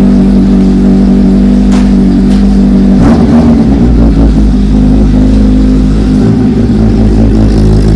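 Kawasaki Z800's inline-four engine running steadily; about three seconds in its note changes, with a brief burst of noise, then settles into a new steady note.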